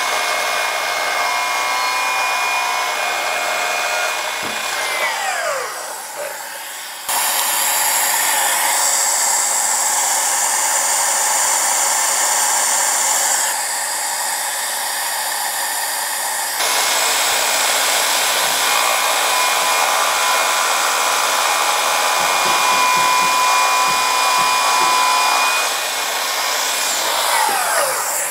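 Milwaukee Fuel cordless sliding miter saw cutting crown molding twice. Each time its motor whines at full speed through the cut, then winds down with a falling whine. A steady rushing hiss from the dust extraction on the saw runs beneath and between the cuts.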